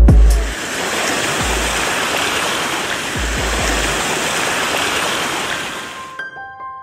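Mountain creek rushing and cascading over rocks and fallen logs, a steady loud rush of water that cuts off suddenly near the end, where a few piano notes begin.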